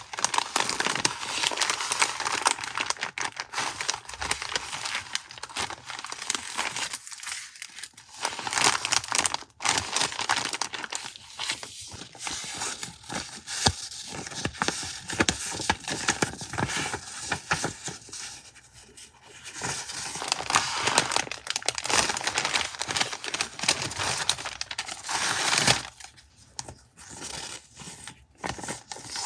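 Crinkling and rustling of stationery packaging being handled and torn open, with sharp crackles and short pauses in between.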